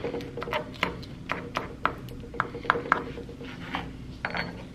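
The edge of a metal spoon scraping along a salmon frame's rib bones to get the leftover flesh from between them. It makes a series of sharp, irregular clicks, several a second, as the spoon catches on each bone.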